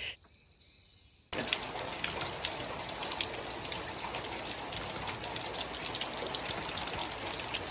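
Steady rain falling, a continuous hiss dotted with the patter of individual drops, starting abruptly about a second in after near silence.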